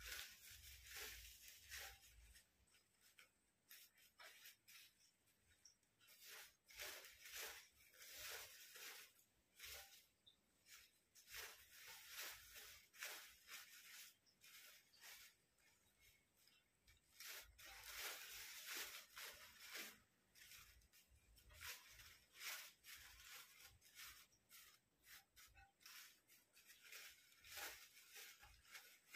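Thin white paper rustling and crinkling faintly in irregular bursts as hands crumple and fluff a stack of cut sheets.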